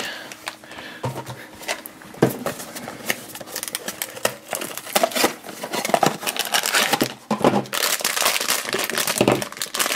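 Blind-box packaging being opened by hand: a small cardboard box is handled and its foil bag is crinkled and torn open. This makes a run of small clicks and rustles, densest near the end.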